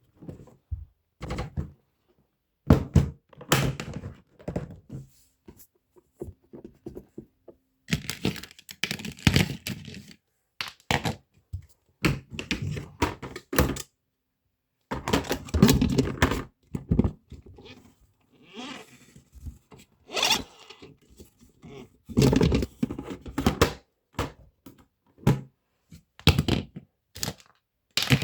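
Irregular thunks, clicks and scrapes of a mini washing machine being handled, with short silent gaps between them.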